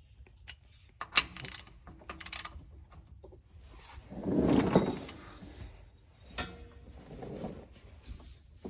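Intermittent metal clinks and rattles of hand tools, with a longer, louder rattling scrape about four seconds in.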